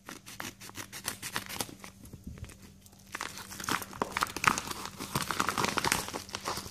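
Scissors snipping through a paper mailer envelope, a run of short crisp cuts, then the envelope's paper crinkling and rustling as it is pulled open by hand, louder in the second half.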